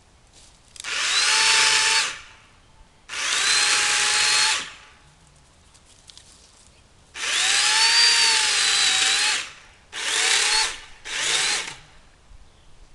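Remington Ranger electric chainsaw run in five short bursts while cutting small tree limbs. Its motor whine rises as it spins up and drops away each time the trigger is let go, with quiet between the bursts.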